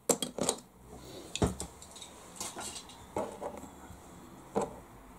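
Small plastic and metal parts being picked up, moved about and set down on a plastic tray: a scatter of light clicks and clacks, the strongest about a second and a half in.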